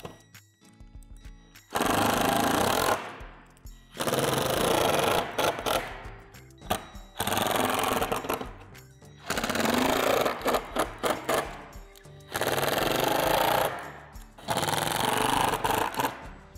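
Cordless power driver running in six bursts of about a second each, driving screws through a metal square tube into a plastic shed gable.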